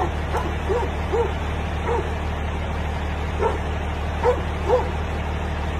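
A dog barking repeatedly in short, sharp barks: a quick run of four, a single one, then another few after a pause, over a steady low hum.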